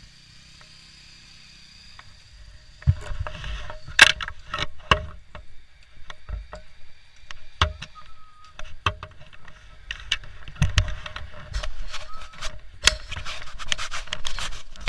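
Irregular knocks, clicks and rattles with a rumbling buffet on the microphone, like a camera being jostled while it is carried along. These start about three seconds in and go on unevenly.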